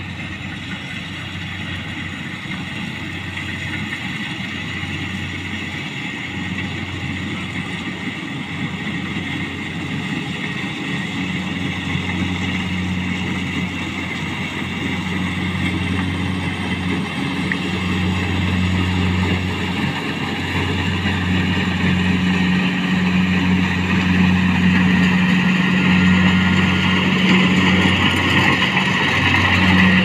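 Rice combine harvester running while harvesting rice: a steady engine hum with a higher rushing noise above it, growing steadily louder as the machine comes closer.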